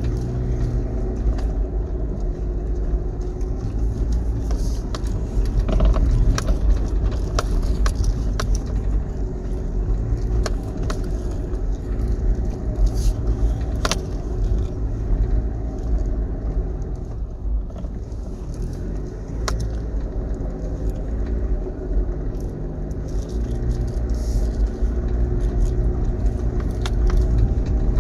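2005 Toyota Land Cruiser Prado driving slowly over a rough dirt forest track, heard from inside the cabin: the engine runs steadily with its note rising and falling, under frequent irregular knocks and rattles as the vehicle bounces over the ruts.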